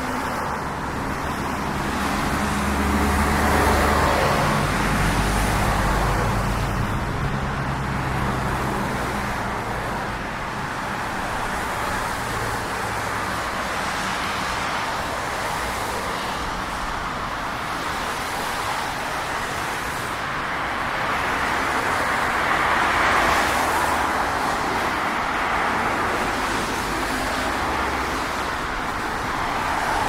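Street traffic: tyre and engine noise from passing vehicles, swelling as vehicles go by about four seconds in and again a little past twenty seconds. A low engine rumble from a heavier vehicle runs through the first ten seconds or so.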